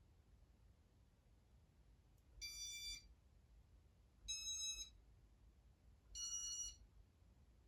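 Three electronic beeps from a Casablanca Intelli-Touch ceiling fan control, about two seconds apart, each a little higher in pitch than the one before.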